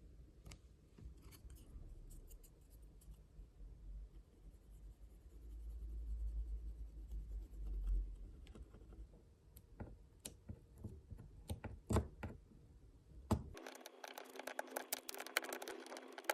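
Small repair tools clicking, tapping and scraping on an iPad mini during a screen and battery replacement. Near the end they give way to a denser run of scratching and crackling.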